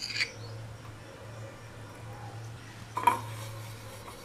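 Light clinks of a utensil against a stainless steel idli plate as its cups are greased with ghee, one just at the start and a sharper one about three seconds in, over a low steady hum.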